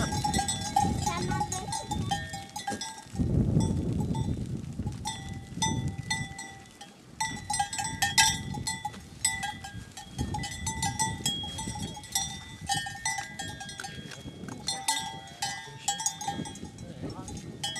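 Bells on a herd of goats clanking and ringing irregularly as the animals move and graze, many quick strikes with a ringing tone between them. A low rumble comes and goes underneath.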